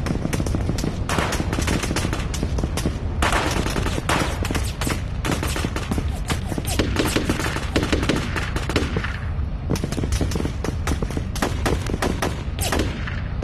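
A battle soundtrack of dense gunfire: rapid automatic bursts and many single rifle shots, packed close together over a constant low rumble.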